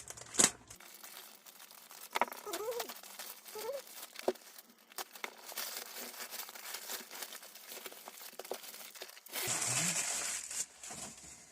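Packaging being unwrapped by hand: crinkling and rustling of wrapping, with a sharp click just after the start and a louder spell of rustling near the end.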